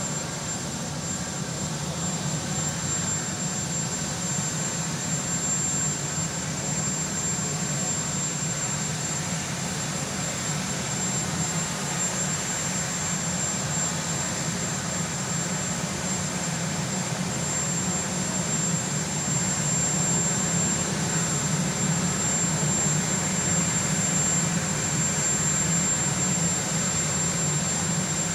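Marine One helicopter's turbine engines running steadily on the ground: a constant deep rumble under a steady high whine, growing slightly louder about two thirds of the way through.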